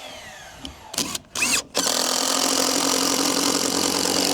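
Power drill boring pilot holes in white oak frame pieces so the wood won't split. The drill gives a few short bursts about a second in, then runs steadily through the wood.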